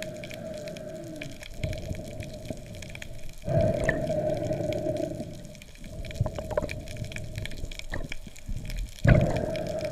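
Underwater sound picked up by a camera in its housing: a steady watery hiss and hum with scattered faint clicks, swelling suddenly louder about three and a half seconds in and again near the end.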